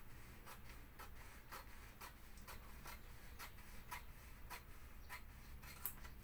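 Scissors snipping through a sheet of frosted privacy window film, faint crisp cuts about twice a second.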